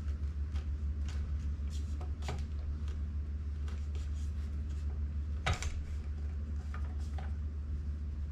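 Handling noises from parts of an electric scooter being assembled: light scrapes and taps, and one sharp click about five and a half seconds in, over a steady low hum.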